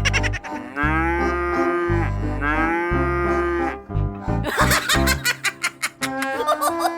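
Two long, drawn-out calls, each about a second long, that sound like an animal lowing, over background music with a steady bass; a quick run of clicks follows near the end.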